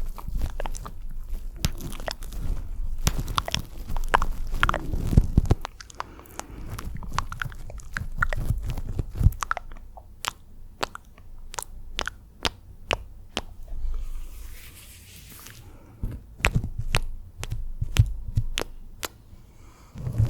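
Close-miked wet mouth sounds: quick, irregular clicks and smacks of lips and tongue, with a short breathy hiss about two thirds of the way in.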